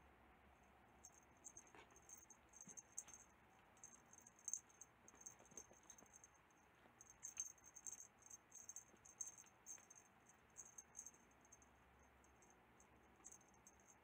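Faint, irregular scratching and rustling of a kitten's claws on a fabric bedspread and carpet, coming in short flurries with a few light clicks.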